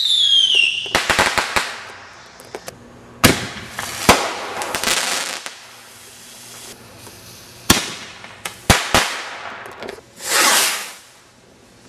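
Fireworks: a launch whistle that drops steadily in pitch and ends about a second in, then crackling and a string of sharp bangs and pops. Near the end, a rushing hiss swells and fades over about a second.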